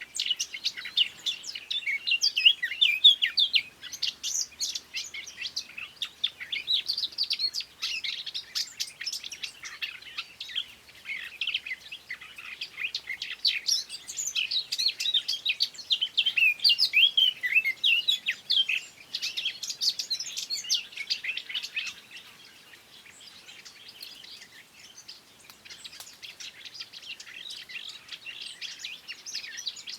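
Songbirds singing: rapid, overlapping chirps and short trilled phrases, continuing throughout and growing quieter in the last third.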